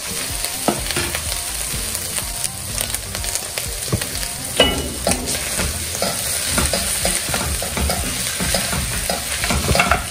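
Beef chunks sizzling as they fry in a hot pot with onions, tomato paste and spices. A wooden spatula stirs them, scraping and knocking against the pot with many short strokes, and one louder knock comes about halfway through.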